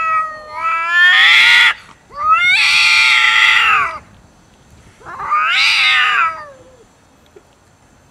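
Two cats caterwauling at each other over food: a string of long, loud yowls that wail up and down in pitch, the last ending about six and a half seconds in. It is aggressive yowling in a standoff.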